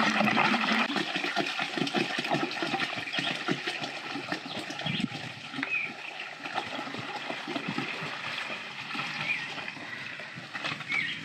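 Liquid biogas digester effluent pouring out of a bucket through a corrugated plastic hose and splattering into another bucket. The flow grows gradually quieter as the pour goes on.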